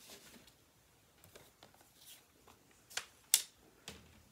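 Light rustles and taps of card stock being handled and laid down on a wooden tabletop, with two sharp ticks about three seconds in, the second one the loudest.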